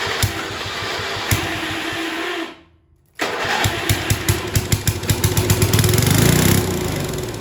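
1975 Montgomery Ward's small gasoline engine, primed with a shot of fuel, firing and running roughly. It drops out briefly, then comes back with rapid, uneven firing that speeds up and then fades near the end.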